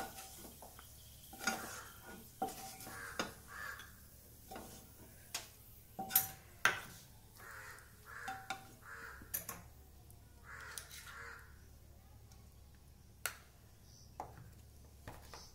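Wooden spatula scraping and knocking on a nonstick kadai as fried cashew and almond pieces are scooped out: a run of irregular sharp taps and short scrapes, sparser in the last few seconds.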